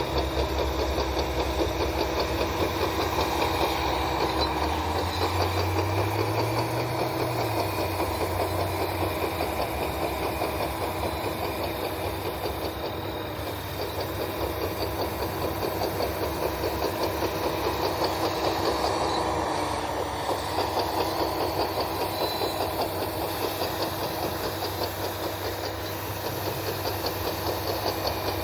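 RC model Caterpillar D10 bulldozer running, with a fast steady clatter of its drive and tracks. Under it a low engine drone rises briefly about five seconds in, then settles back.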